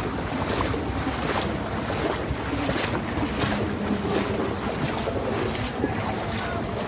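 Wind buffeting the microphone over a motorbike engine running steadily.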